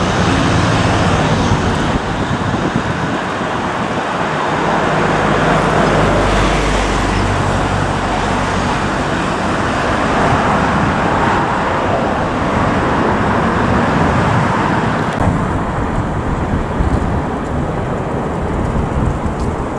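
Rolls-Royce Trent 700 jet engines of an Air Transat Airbus A330-200 at takeoff power, a steady roar as the airliner climbs away. About fifteen seconds in, the sound changes abruptly to a duller, thinner rumble.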